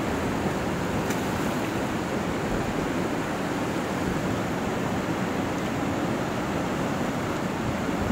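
Steady rushing of a fast-flowing river running over rapids and rocks.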